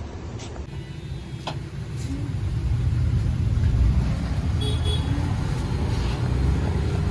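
Low, steady rumble of a motor vehicle running close by, growing louder about two seconds in, with a few faint clicks over it.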